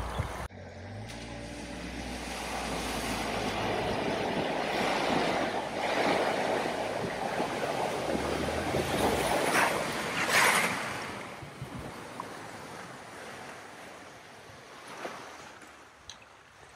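A vehicle driving through deep floodwater: its engine running low and steady under a continuous wash of churned water. The water surges loudest about ten seconds in, then dies away as the vehicle moves off.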